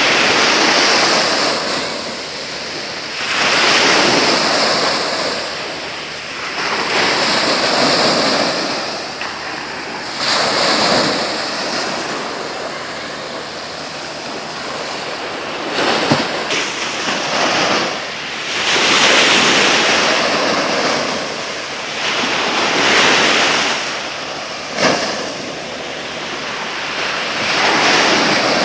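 Sea waves breaking and washing on the shore, the surf rising and falling in surges every three to four seconds.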